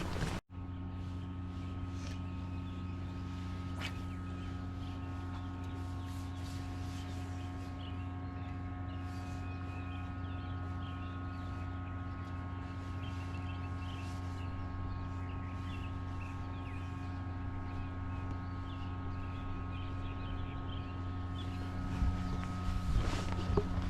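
Boat motor humming steadily, a constant droning tone with many layered pitches and no change in speed.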